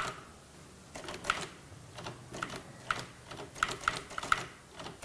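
Manual typewriter keys being struck one at a time at a slow, uneven pace. The keystrokes start about a second in and come closer together near the end.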